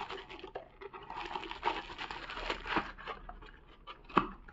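Crinkling of a plastic bag around a small power adapter as it is handled, with many small ticks, then a single sharp tap a little past four seconds in as a small cardboard box is handled.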